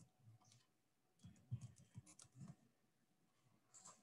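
Faint typing on a computer keyboard: about ten separate key clicks at an uneven pace, most of them bunched in the middle and two more near the end.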